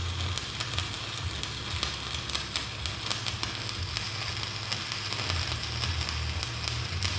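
Stick welding arc crackling and sizzling steadily as a bead is laid to fix a bucket tooth onto its worn shank, with a low steady hum underneath.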